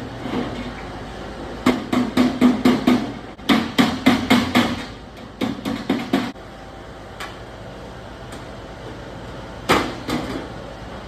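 Quick runs of metal-on-metal strikes on a galvanized sheet-metal duct fitting as its Snaplock seam is worked closed, about five hits a second in three bursts, then a single strike near the end.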